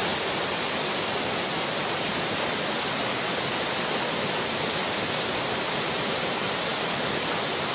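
Mountain stream rushing over boulders and small rapids: a steady, even rush of water.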